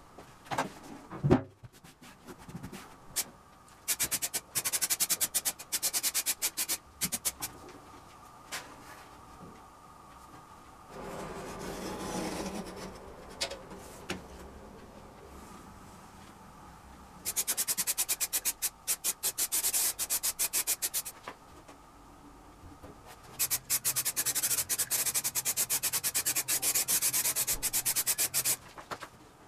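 MDF being hand-sanded with a sanding pad: quick back-and-forth scratchy strokes in three runs. A single sharp knock about a second in is the loudest sound.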